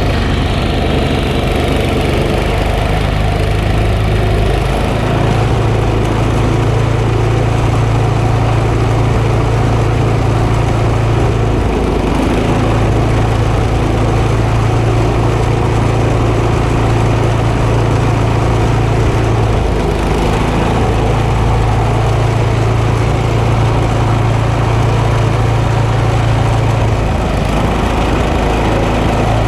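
Snowblower engine running steadily, with brief dips in its hum about every seven or eight seconds.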